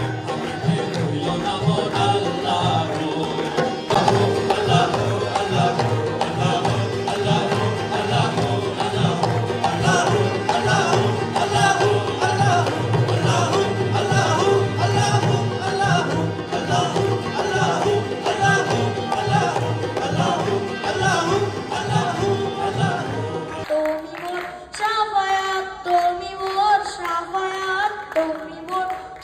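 Sufi devotional ensemble performing live: harmoniums, hand drums with a steady beat, and group singing. About 24 seconds in the drums stop and a single voice sings alone.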